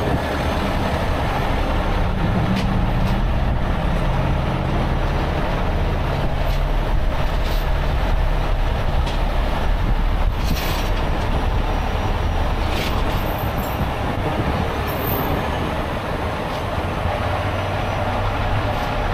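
Steady roar of freeway traffic with the low drone of a heavy diesel tow-truck engine running, and a few light clanks.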